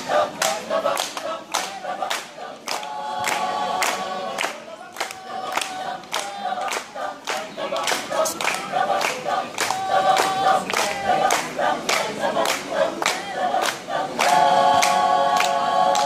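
Mixed polyphonic choir singing a cappella, men's and women's voices in parts, over a steady beat of sharp claps, about two to three a second.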